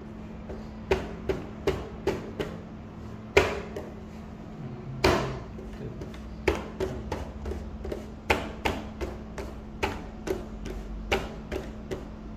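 An uneven run of about twenty sharp clicks or taps, two to three a second, starting about a second in, with two louder knocks in the middle, over a steady low hum.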